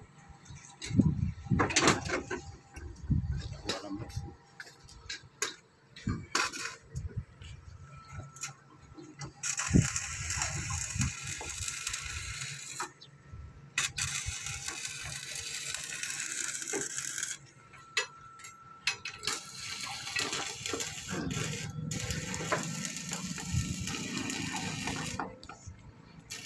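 Sharp metal clicks and knocks of steel rebar being handled, then three stretches of steady hiss, each a few seconds long, that start and stop abruptly: an arc welder welding the rebar reinforcement.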